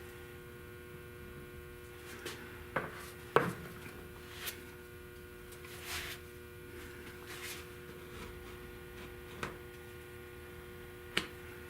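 Steady electrical hum with a handful of short, scattered knocks and scrapes from hand tools at work. The sharpest knock comes about three and a half seconds in.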